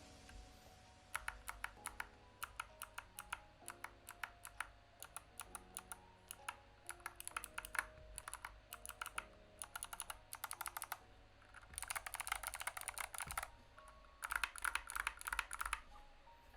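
Mechanical keyboard with Kailh Box White clicky switches being typed on: single keystrokes spaced out at first, then two quick flurries of rapid clicking in the second half.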